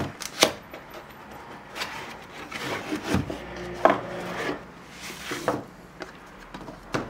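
A cardboard box being opened by hand on a wooden table: cardboard rubbing and scraping as the lid is lifted and the inner box and a paper leaflet are pulled out, with several sharp taps of cardboard on the tabletop.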